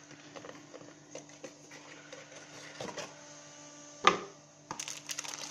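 Packaging being handled by hand: scattered light taps and rustles on the cardboard box, a sharp knock about four seconds in, then crinkling of plastic wrapping near the end as the accessories come out.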